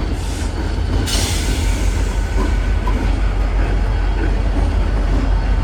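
Union Pacific diesel switcher locomotive and its freight cars rolling past, with a loud steady low rumble and a short hiss about a second in.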